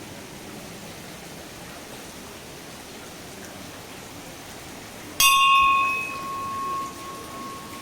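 A brass temple bell struck once about five seconds in, ringing a clear tone that fades over about two seconds, over a steady background hiss.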